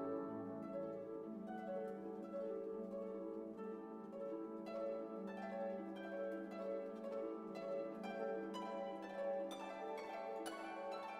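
Instrumental music with harp and plucked strings: a run of quick plucked notes over a held low note.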